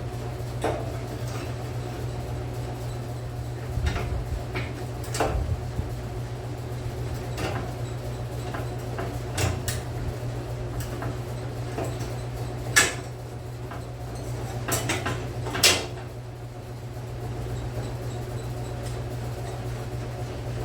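Scattered metal clicks and knocks of hardware being handled and fitted while a latch goes onto a steel lawn cart, with two sharper knocks in the second half, over a steady low hum.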